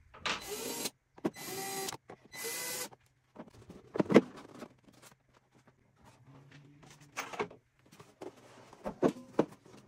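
Cordless drill/driver running in three short bursts in the first three seconds, backing screws out of the plastic base of a Festool CT Mini extractor. Scattered knocks and clatter follow as the plastic housing is handled and turned over, with a sharp knock about four seconds in.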